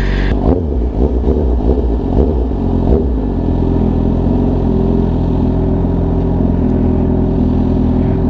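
Suzuki GSX-R 750 inline-four engine running as the bike rolls slowly into a parking space, its note wavering with small throttle changes at first, then settling to a steady idle about three seconds in.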